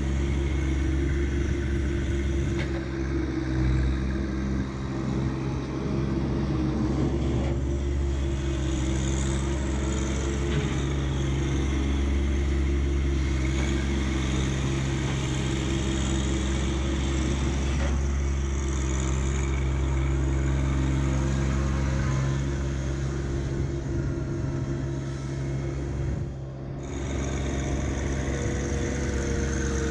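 John Deere 1025R subcompact tractor's three-cylinder diesel engine running steadily at a constant speed.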